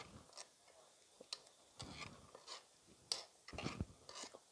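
Metal spoon scraping and clicking against a metal pot while thick green banana porridge is stirred: faint, irregular clicks and scrapes.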